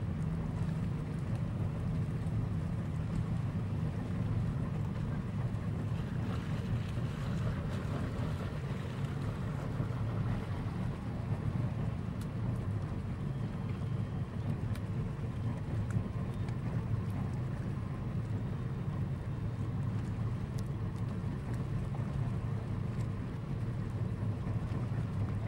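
Boat engine running steadily underway: a constant low hum that holds at one level.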